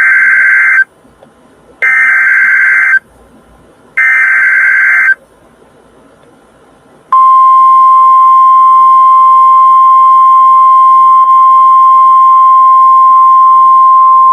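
NOAA Weather Radio Emergency Alert System signal: three SAME header data bursts, each about a second long and two seconds apart. About seven seconds in, the steady 1050 Hz warning alert tone starts and holds. Together they announce a new severe thunderstorm warning.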